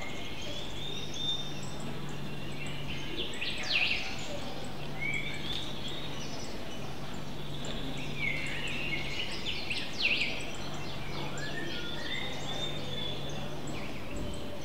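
Birds chirping: scattered short chirps and quick falling whistles over a steady background hiss, with a low hum that comes and goes.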